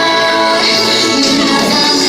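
Loud pop music, a full band mix with steady and shifting melodic lines.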